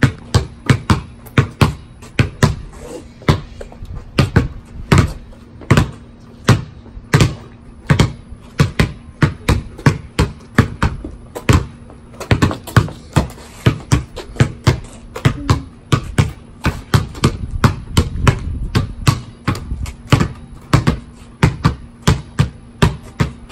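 Two basketballs being dribbled on a concrete slab, their bounces out of step with each other in an uneven patter of about two to three a second.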